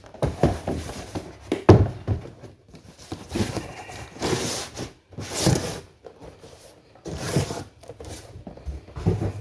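Boxed action-figure packages being handled: irregular rustles, scrapes and knocks of cardboard and plastic packaging, with a sharper knock about one and a half seconds in.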